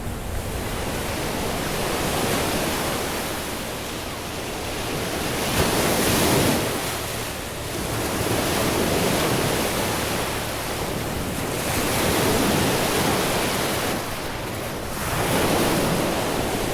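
Lake Huron waves breaking on the beach, the surf swelling and easing every three to four seconds, with some wind on the microphone.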